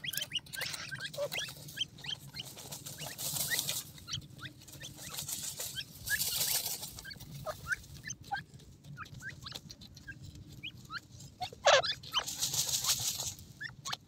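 Young grey francolins giving many short, soft peeps and chirps while scratching and dust-bathing in dry sand, with bursts of sandy rustling. One louder call comes about three quarters of the way through.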